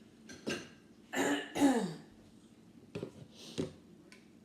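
A woman coughing and clearing her throat, two quick loud hacks about a second in, the second falling in pitch: a congested cough from a cold she has at the time. A few short knocks follow near the end.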